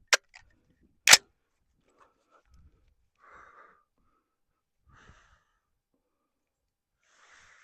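A single loud, sharp click of firearm handling about a second in, as the rifle is readied to shoot. Then a few soft breaths.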